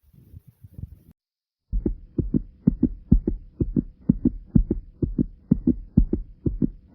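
A person's heartbeat, thumping loudly: faint low beats at first, a short break about a second in, then strong rapid thumps at about four a second, with a faint steady hum alongside.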